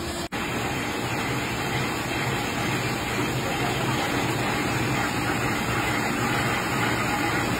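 Tissue paper printing and converting machine running, the paper web feeding through its ink and guide rollers: a steady, dense mechanical running noise.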